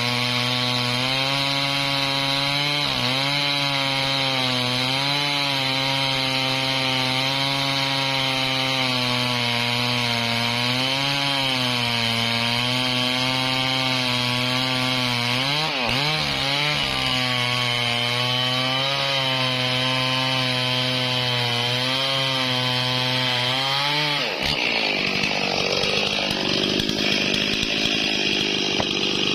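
Stihl MS440 two-stroke chainsaw cutting through a durian tree trunk under load, its engine pitch rising and falling slightly as the bar is worked through the wood. Near the end the steady engine note breaks off abruptly and turns rougher and noisier.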